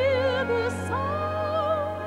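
Orchestral music: a slow melody of held notes with vibrato over a sustained low bass note.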